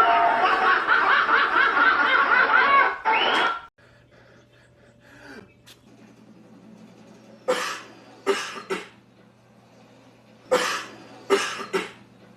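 Loud laughter that stops suddenly about three and a half seconds in. Then, over a steady low hum, a person gives two rounds of three short, sharp fake coughs, aimed at someone as a prank.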